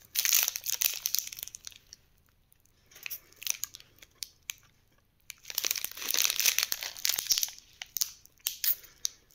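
Plastic ice cream wrapper crinkling as it is handled close to the microphone, in two bouts: one in the first two seconds, another from about five and a half to seven and a half seconds in, with scattered small crackles between.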